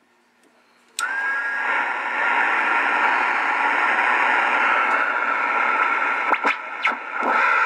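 Realistic SX-190 shortwave receiver's speaker hissing with band static. It is near silent for about a second, then the hiss comes on suddenly with a short whistle. Near the end it is broken by a few clicks and brief dropouts while the tuning knob is turned.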